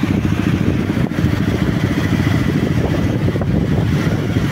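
Motorcycle engine running steadily while riding, a loud low rumble heard from on the motorcycle, with other motorcycles close by.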